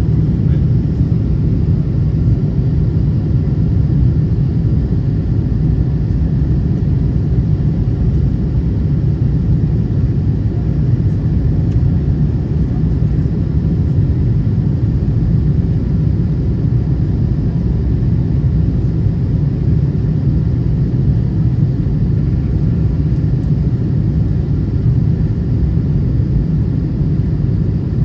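Cabin noise of a Boeing 747-8 on approach with its flaps extended: a steady low rumble of the GEnx engines and airflow, heard inside the cabin over the wing.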